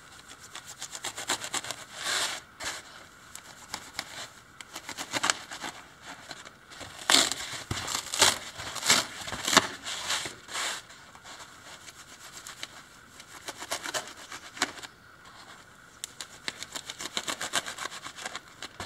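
A dull knife sawing through polyethylene foam packaging in repeated short rasping strokes, with louder bursts of foam scraping and tearing from about seven to eleven seconds in as cut pieces are pulled off.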